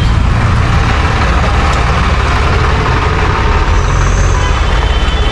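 Street traffic: vehicle engines running steadily with a continuous low rumble and road noise.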